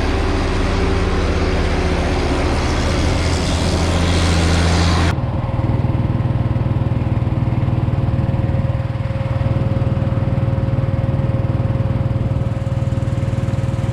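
Engine of heavy farm machinery running steadily. About five seconds in the sound changes abruptly to a different engine drone with a steady whine over it.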